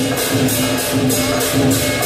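Lion dance percussion: cymbals clashing on a steady beat about three times a second, over drum.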